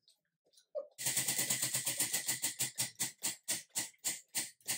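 Prize wheel spinning, its pointer clicking over the pegs on the rim: starting about a second in, a rapid run of clicks that slows steadily as the wheel winds down.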